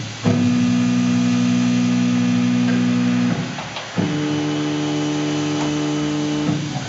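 CNC mill spindle on a Tormach PCNC 1100 whining steadily while driving a 1/4-28 spiral flute tap into aluminium. About three seconds in it stops, then runs again at a different pitch for a few seconds and cuts out near the end, the stop-and-reverse of an automated tapping cycle.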